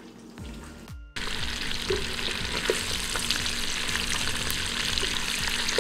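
Floured, seasoned beef pieces browning in hot oil in a pot, sizzling steadily, with a wooden spatula turning them now and then. The sizzle comes in loudly about a second in.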